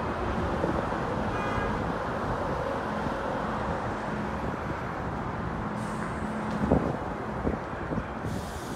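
Steady traffic noise from a busy multi-lane highway below: an even wash of passing cars.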